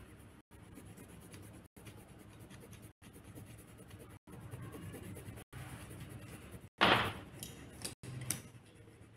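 A colouring tip scratching on paper, faint and steady, as colour is rubbed into a drawing by hand. A louder rustle comes about seven seconds in.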